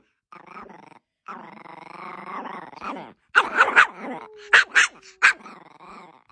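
Chihuahua growling and grumbling in long drawn-out stretches, breaking into several sharp yaps about halfway through: a small dog protesting at having her stick taken away.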